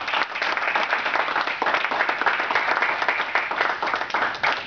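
Audience applauding, a steady run of many hands clapping.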